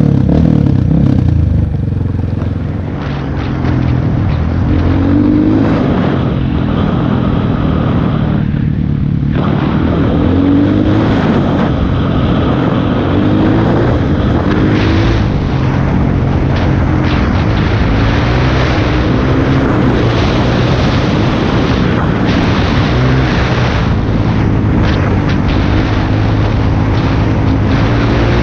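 Honda CRF230F trail bike's air-cooled single-cylinder four-stroke engine running under way on a dirt road, its revs rising again and again through the gears, with a brief easing off of the throttle about three seconds in.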